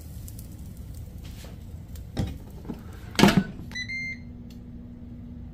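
Ninja air fryer being shut with a loud clatter just after three seconds in, followed right away by a couple of short beeps from its control panel as it starts cooking, and a steady low hum from it after that.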